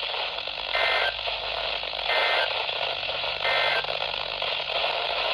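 NOAA Weather Radio receiver sending three short bursts of SAME digital data, harsh two-tone buzzes about 1.3 seconds apart, over steady radio static. This is the end-of-message code that closes the severe thunderstorm warning.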